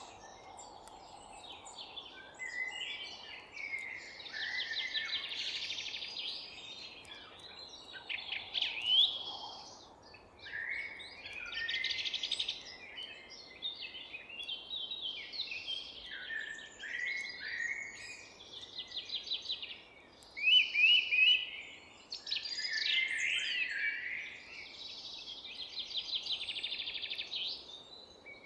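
Several songbirds singing at once in a forest: overlapping rapid trills, chirps and sweeping whistles, one after another with hardly a pause, over a faint steady background hiss.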